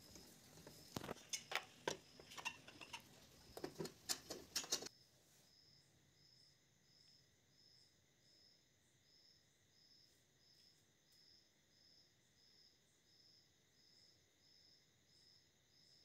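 Scattered metallic clicks and scrapes of a screwdriver loosening the screws and nuts on a washing machine's metal gearbox mounting plate. These last about five seconds and are followed by near silence.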